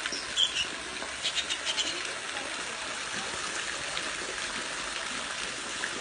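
Waterfall water spraying and trickling down a rock face in a steady hiss. Short high bird chirps come about half a second in, then a quick run of them between one and two seconds.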